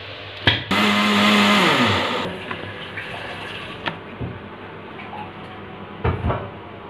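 Electric blender blending lassi for about a second and a half, its motor hum falling in pitch as it spins down. This is followed by a few knocks and clicks of the blender jar and lid being handled.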